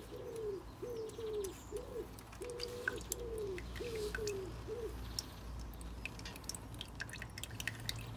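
A pigeon cooing in a repeated phrase of low, falling notes that stops about five seconds in. Engine oil from the motorcycle's sump drain dripping into a plastic drain bowl as faint, irregular ticks, more of them in the last few seconds.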